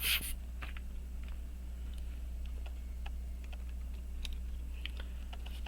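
A short puff from a hand air blower at the very start, then faint, irregular small metallic clicks as tweezers and a cover plate are fitted onto a pocket watch movement, over a steady low hum.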